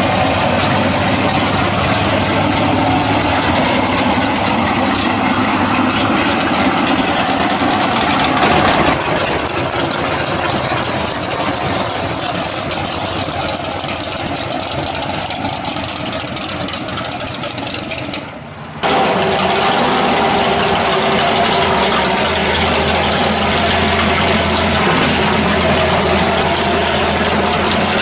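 Loud drag-race car engines idling as the cars roll slowly past, one car after another. The sound changes abruptly twice, about 9 and 18 seconds in, as one car gives way to the next.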